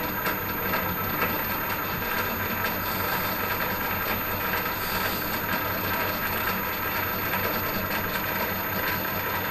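Myford Super 7B lathe running with the power cross feed engaged: a steady rattling whirr from its gear train driving the leadscrew and cross slide.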